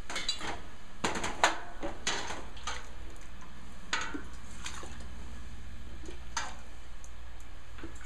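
Metal ladle clinking and knocking against a stainless steel stockpot and a plastic canning funnel while hot apple juice is ladled into a glass quart jar. The knocks come every half second or so for the first few seconds, then more sparsely.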